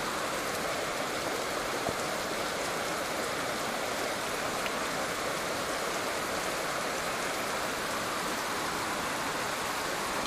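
Heavy rain and floodwater rushing down a street in a steady, even hiss.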